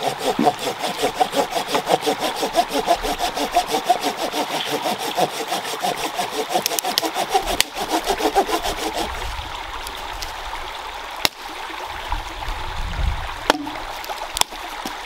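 Small hand saw cutting a dead branch in quick, even back-and-forth strokes, about three a second, stopping about nine seconds in. A few sharp cracks of dead sticks snapped by hand follow, over the steady rush of a stream.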